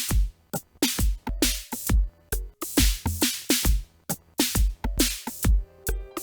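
Electronic drum-machine beat: a busy, syncopated pattern of deep kicks and bright snare and hat hits, with short pitched hits that drop quickly in pitch.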